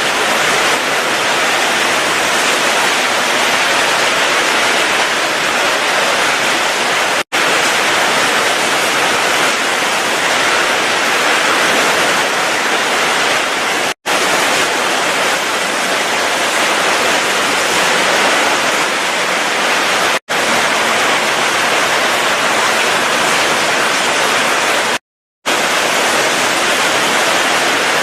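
Heavy rain pouring in a steady, loud rush. It cuts out briefly four times, about a third of the way in, halfway, about two-thirds of the way in, and for half a second near the end, where clips are joined.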